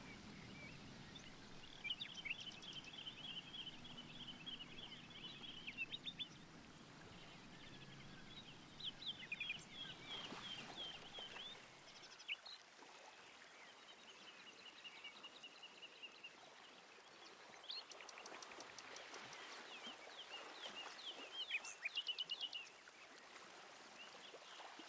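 Faint songbird chorus: several birds singing in quick chirping and trilling phrases over a soft outdoor hiss.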